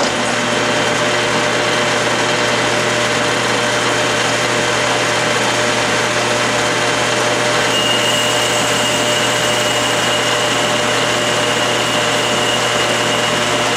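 A 12-inch Atlas/Craftsman metal lathe runs steadily under power feed while a boring bar takes a slow, light finishing cut inside a Morse taper bore. A thin high whine comes in about halfway through.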